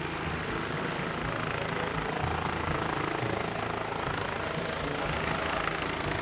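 Helicopter running: a steady rush of rotor and engine noise.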